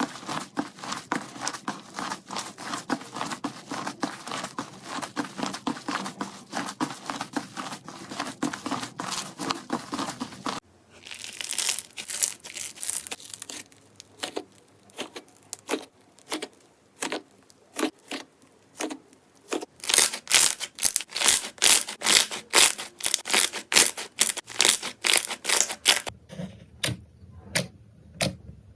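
Slime being squeezed, pressed and poked by hand in a run of short clips. First comes dense crackling, then a brief burst of crunching, then spaced clicks. Past the middle, sharp pops come a few a second.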